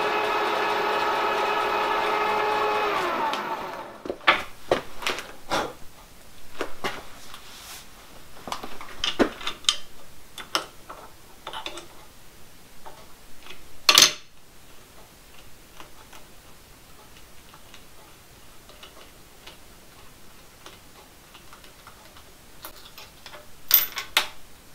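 Milling machine running steadily, then switched off, its pitch falling as it spins down about three seconds in. After that come scattered metallic clicks and knocks as an adjustable spanner works the nut on the ring-cutting fixture and the clamps are handled, with one sharp clank about fourteen seconds in and a few more near the end.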